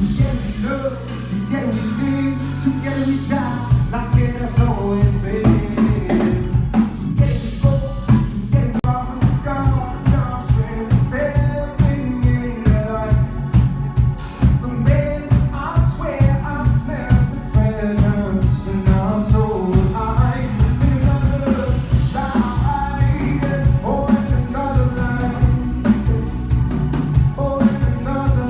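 A male singer-songwriter singing with instrumental backing. A steady drum beat comes in about three and a half seconds in.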